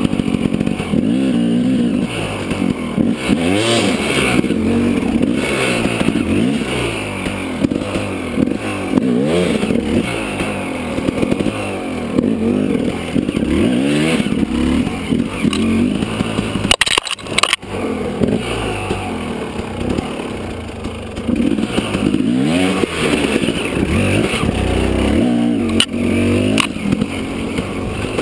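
Dirt bike engine revving up and easing off again and again as it is ridden along a rough trail, its pitch rising and falling every second or two. There is a brief drop in the sound with a couple of sharp knocks about two-thirds of the way through.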